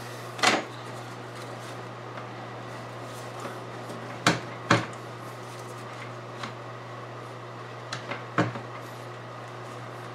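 A handful of short, dull knocks and clunks as a dual-core radiator is pushed and worked into its rubber mounting slots on an ATV frame, two of them close together around the middle.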